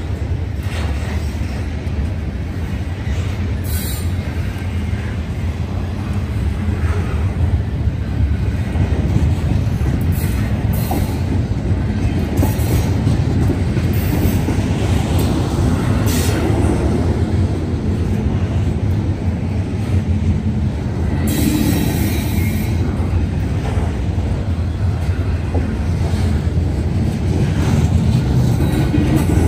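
Norfolk Southern double-stack intermodal train's container cars rolling past at close range: a loud, steady, heavy rumble of wheels on rail, with several short, sharp, high-pitched noises, the longest about two-thirds of the way through.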